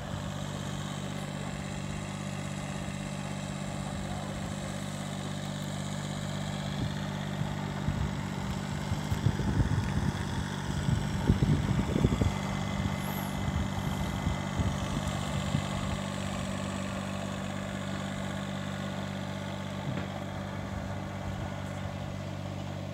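Aircraft engines running steadily at an airfield: a continuous low hum with a haze of turbine noise. Irregular louder rumbling comes and goes in the middle.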